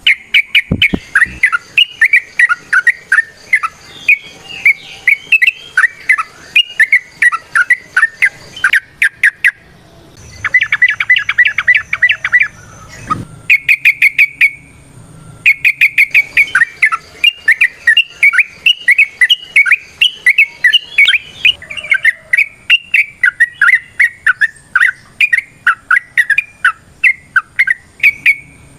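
Yellow-vented bulbul (trucukan) singing loudly in long, rapid runs of varied bubbly notes. About ten seconds in there is a faster chattering burst, then a brief pause, before the run resumes.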